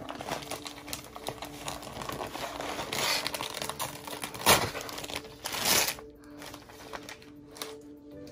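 Plastic gift bag crinkling and rustling as it is pulled and torn open by hand, with a sharp loud rip about four and a half seconds in and another burst of tearing just before six seconds.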